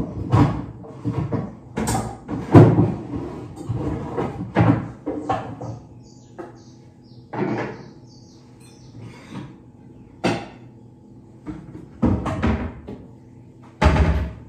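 Metal pots, pans and lids clattering and knocking as someone rummages through a low kitchen cupboard, with irregular knocks of differing loudness. The loudest knock comes about two and a half seconds in, and another sharp one near the end as a pan or lid is lifted out.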